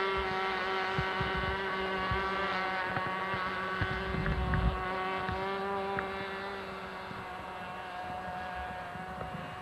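Rossi .60 two-stroke glow engine of a radio-controlled F-18 pusher-prop model flying overhead: a steady, high-pitched drone, its pitch sinking slightly, slowly fading as the plane moves away. Wind thumps on the microphone underneath.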